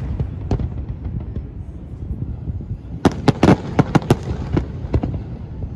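Fireworks going off: a single bang early, then a rapid cluster of sharp bangs about three seconds in and a few scattered bangs after, over a steady low rumble.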